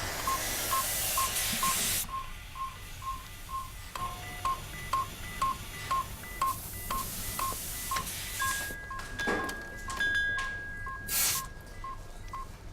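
Electronic medical monitor beeping on one pitch, about two and a half beeps a second, with a hiss of gas in the first two seconds. A higher held beep tone joins it over the last four seconds, and a short whoosh comes near the end.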